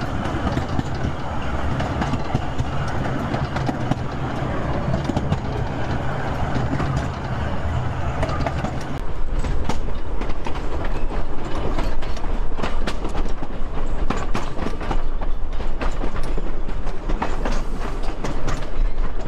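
Wooden carriages of a 750 mm narrow-gauge train running along the track, heard from on board. A steady rumble gives way about nine seconds in to a louder stretch of rapid clicking and rattling from the wheels and running gear.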